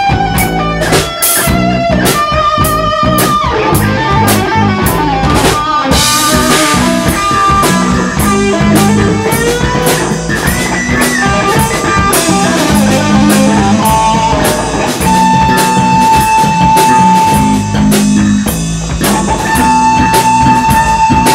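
Instrumental rock jam: electric guitar playing long held lead notes with bends over a repeating bass guitar line and a drum kit keeping a steady beat, with a cymbal crash about six seconds in.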